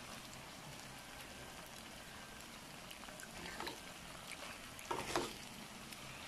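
A slotted metal spoon stirring saucy macaroni in a metal pan, with a few soft scrapes and clinks about three and a half and five seconds in, over a faint steady hiss.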